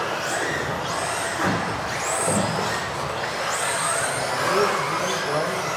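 Several electric RC off-road buggies racing, their motors whining in rising and falling glides as they speed up and slow down, the whines overlapping.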